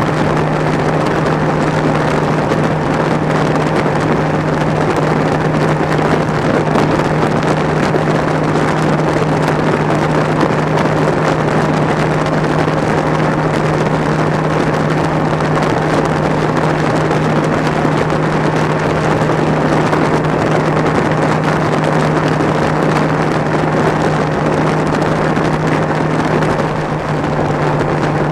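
Bass boat's outboard motor running steadily at high speed, one constant engine note over the rush of wind and water.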